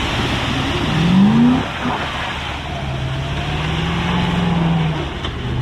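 Truck engine revving up sharply about a second in, then pulling steadily under load with slow rises and falls in pitch, over a steady rushing noise.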